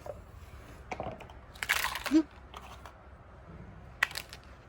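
Plastic toys and their packaging being handled: a crinkling rustle near the middle and a few scattered light clicks.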